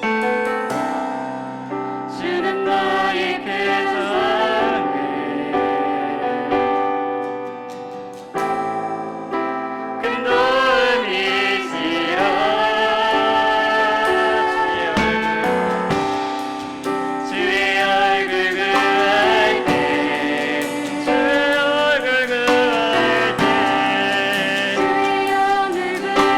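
Live worship music: several voices singing a praise song together over piano and drums. The music grows fuller and louder about ten seconds in.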